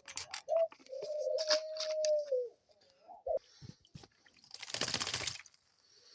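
Pet dove giving a short coo, then one long drawn-out coo that falls away at its end, with quick splashing clicks of the bird bathing in its water bowl. About five seconds in comes a second-long rush of splashing and fluttering.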